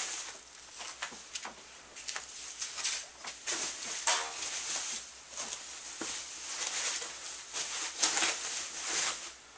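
Packing material around a new electric guitar being pulled off and handled, rustling and crinkling in irregular bursts.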